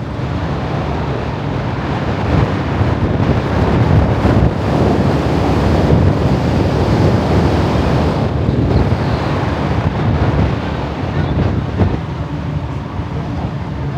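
Wind buffeting the microphone over the steady low drone of the ferry, gusting louder for several seconds in the middle.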